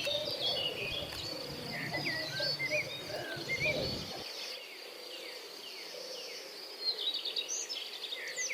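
Birds chirping in many short calls that rise and fall, over a steady high insect trill. Low rumbling noise underneath stops abruptly about four seconds in.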